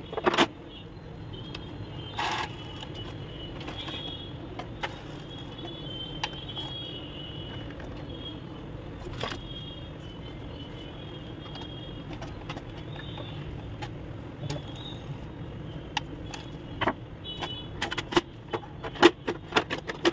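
Clicks and knocks of an Epson L130 inkjet printer's plastic parts being handled and its cover being closed, bunching together in the last few seconds. Under them runs a steady low background rumble.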